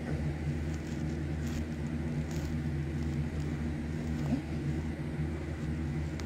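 Steady low machine hum, even and unchanging, with a few faint ticks over it.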